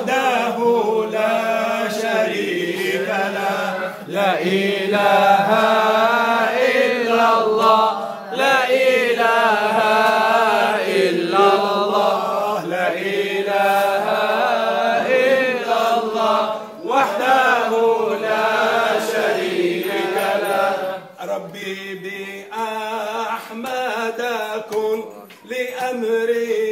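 Unaccompanied male chanting of a mawlid devotional poem in Arabic, with long, wavering held notes.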